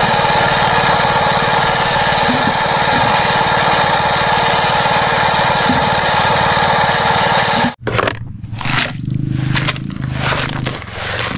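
Steady, loud, engine-like motor drone while a toy concrete mixer truck pours mud down its chute. The drone cuts off abruptly about three-quarters of the way in, and plastic toys then clatter and knock as a hand lifts them out of a toy dump truck.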